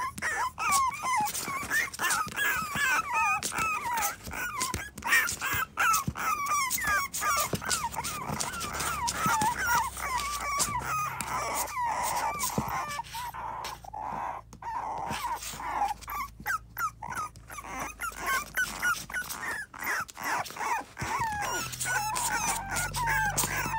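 Toy poodle puppies whining and whimpering in a near-continuous run of short, high, wavering cries, wanting to get out of their cardboard box, with scattered light clicks.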